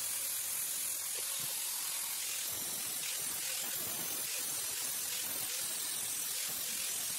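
Handheld angle grinder with an abrasive disc grinding the steel of a knife blank forged from a connecting rod, a steady hissing grind.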